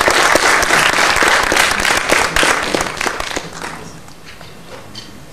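Audience applauding, a dense patter of clapping that thins out and fades away about four seconds in.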